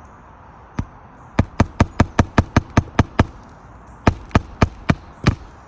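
Hammer striking roofing nails into shingles: a single blow, then a fast run of about ten strikes, a short pause and four more.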